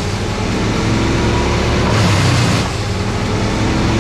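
An engine running steadily under load, with a low, even hum and a slight dip in level about two and a half seconds in.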